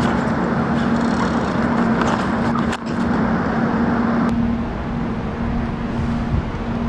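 Steady road traffic noise with a constant engine hum that fades out about two-thirds of the way through.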